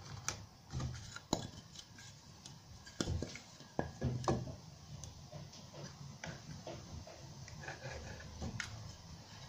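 Irregular light knocks and clicks of a pine block being handled and offered up against a wooden door frame and sill, a handful of sharper knocks in the first half.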